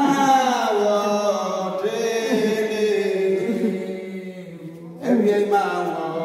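A voice chanting in long drawn-out phrases that slide down in pitch, a new phrase starting about five seconds in.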